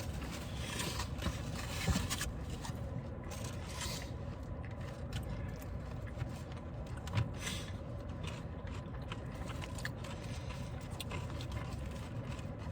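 Eating sounds: chewing, with short scrapes and clicks of food and packaging being handled, over a steady low background rumble.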